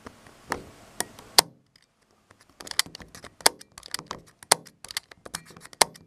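Irregular sharp clicks and taps, a dozen or more, with a break of near silence about two seconds in.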